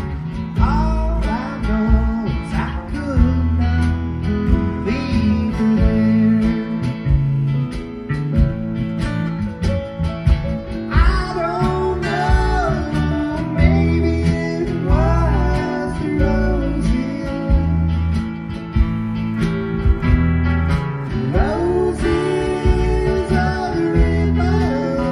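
Instrumental break of an acoustic-guitar band song: a lead guitar plays a solo line whose notes bend up and down over strummed chords and a bass line.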